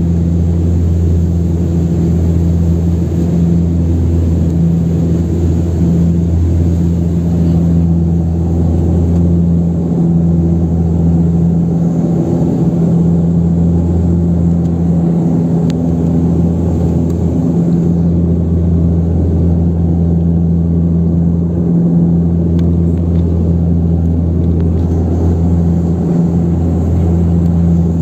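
Antonov An-24RV's Ivchenko AI-24 turboprop engines and propellers heard from inside the passenger cabin: a loud, steady drone with a deep hum.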